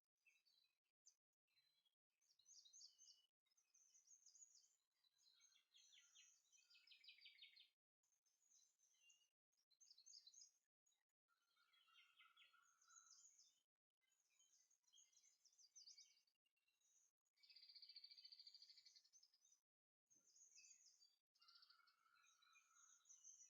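Very faint bird chirping and trilling in short phrases, broken by brief stretches of silence.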